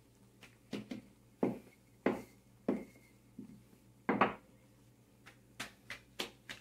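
Irregular soft knocks and slaps, about ten in all, from flour tortilla dough being handled and rolled out with a wooden rolling pin on a countertop.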